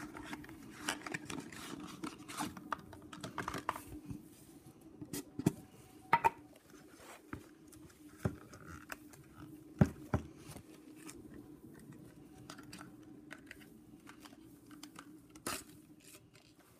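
Handling noise from a cardboard box and a metal putty tin as the tin is slid out of its packaging and opened: scattered scratching, rustling and clicks, with a few sharper, louder clicks.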